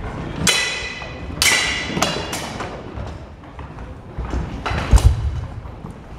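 Steel weapons striking steel helmets and shields in sword-and-shield sparring: about five sharp clangs in quick succession, the first two ringing on, then a heavy thud about five seconds in.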